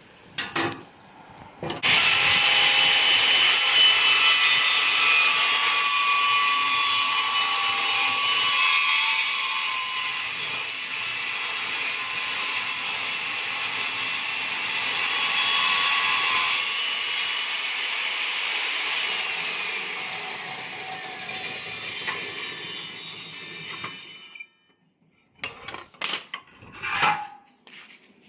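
Power saw cutting a piece of agarwood: a continuous, loud whining cut that starts about two seconds in, fades off and stops near the end, followed by a few light knocks of wood.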